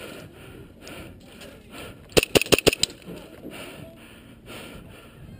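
Airsoft gun fired about five times in quick succession, sharp cracks about two seconds in, over a soft rhythmic rustle of movement.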